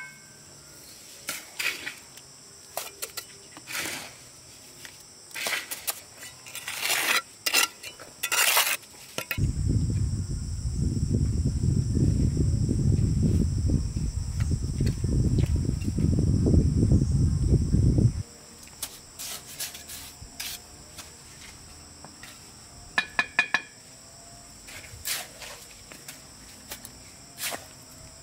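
Insects buzzing steadily throughout, with scattered sharp clinks and taps of hard objects. For about nine seconds in the middle a loud low rumble takes over and then stops abruptly.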